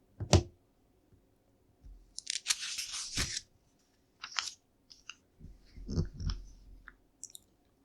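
Plastic LEGO bricks being handled: a sharp click just after the start, about a second of rattling, rustling plastic a couple of seconds in, then scattered clicks and taps as pieces are picked up and set down.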